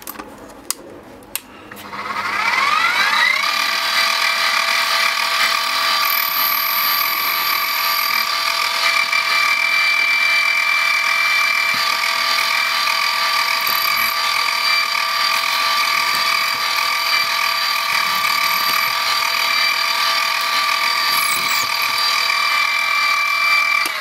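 Drill press motor spinning up about two seconds in and then running steadily with a high whine, its bit re-drilling the pin chambers of a sealed brass padlock to clear pins that did not come out. A few clicks before the motor starts.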